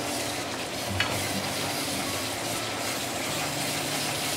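Chilli sambal paste frying in oil in a non-stick pan, a steady sizzle, as a wooden spatula keeps stirring it. One light knock about a second in.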